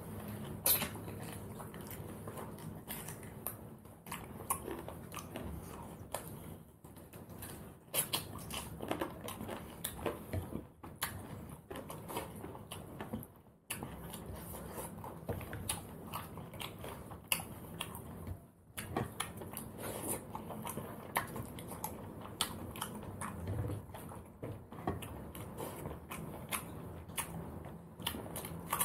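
Close-up chewing and crunching of goat curry and rice eaten by hand, including bits of crunchy goat bone. Many short, irregular clicks and crunches throughout.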